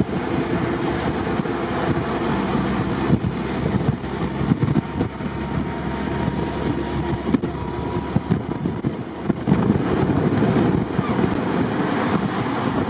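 An open-topped Jeep Willys driving at road speed on asphalt: the engine running steadily under the rumble of the tyres, with wind buffeting the microphone.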